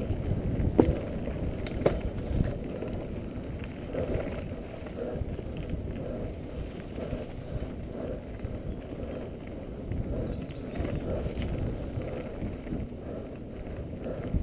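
Mountain bike descending a rough dirt trail, heard from a helmet-mounted camera: a constant low rumble of tyres on dirt and the bike rattling over bumps, with sharp knocks about one and two seconds in.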